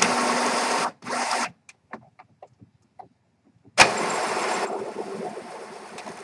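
Epson WorkForce inkjet printer's mechanism running during its first ink charge after a continuous ink system is fitted: two short bursts of whirring, then a sharp clack about four seconds in followed by a longer whir that fades.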